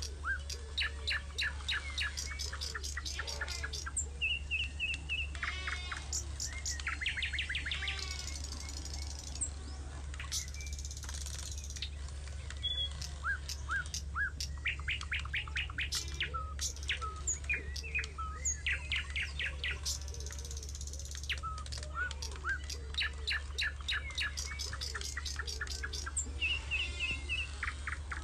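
Birds chirping and trilling: many short, quick calls and rapid trill phrases coming in bouts with brief pauses between them, over a steady low hum.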